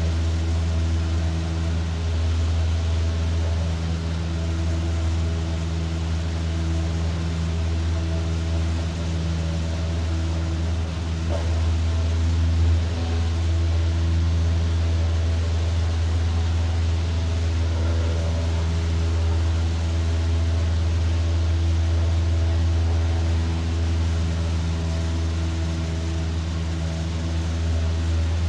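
Light aircraft's piston engine and propeller droning steadily, heard from inside the cabin during the climb-out after takeoff.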